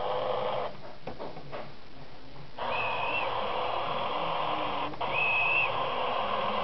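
Howes sound decoder in a model BR Class 101 diesel multiple unit, playing diesel engine running through its small speaker. In the first couple of seconds the engine sound drops back under a few sharp door-slam clunks. Then come two short, steady, high guard's buzzer tones about two and a half seconds apart.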